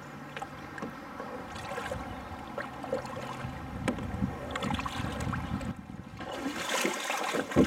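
Kayak paddle strokes in calm river water: the blades dip and pull with soft splashes and scattered drips. After about six seconds this gives way to a louder wash of sloshing water, ending in a single sharp knock.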